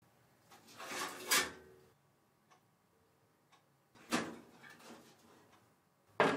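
Kitchen handling sounds: a few knocks and clatters, then a sharp metallic clank near the end as a metal baking tray is slid out of an oven, its scraping ringing on briefly.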